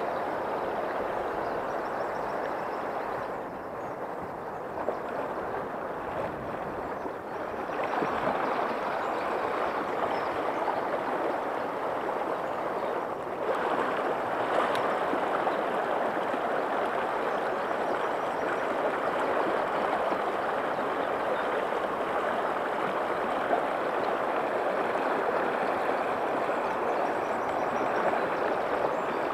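A shallow, stony river rushing over a riffle: a steady wash of running water. It dips for a few seconds about four seconds in, and is a little louder from about halfway.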